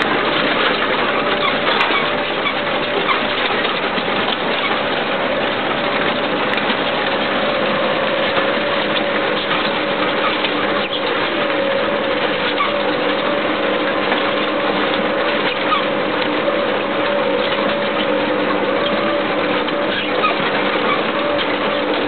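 Tractor engine running steadily under load while pulling a mounted plough through grassland. It is a constant drone with a hum that wavers slightly in pitch.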